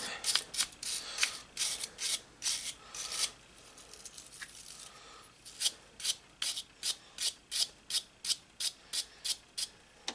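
Short strokes of a hand tool scraping back and forth on the side of a carburetor body, about three strokes a second, to clean off and read the numbers stamped there. The strokes ease off briefly midway, then resume in an even rhythm.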